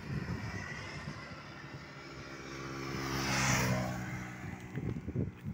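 An engine passing by, rising to its loudest about three and a half seconds in and then fading away.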